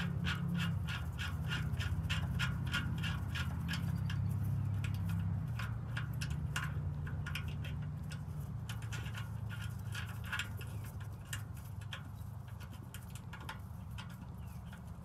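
Light clicking as an exhaust gas temperature sensor is threaded back in by hand: about three clicks a second at first, then fewer and more irregular. A steady low hum runs underneath.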